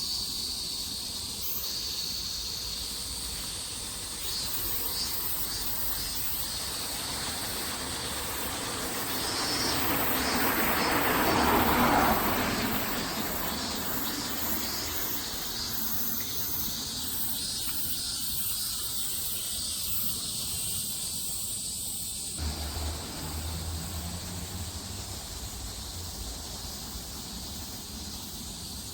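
Cicadas buzzing in a continuous high-pitched drone that pulses rhythmically. A broad swell of noise builds, peaks about twelve seconds in and fades, and a low hum comes in abruptly about two-thirds of the way through.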